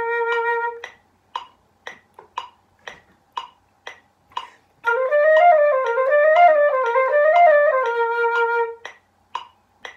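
Concert flute ends a held note, then after a pause plays a short phrase that rises and falls three times and ends on a held note. In the gaps, a steady click sounds about twice a second.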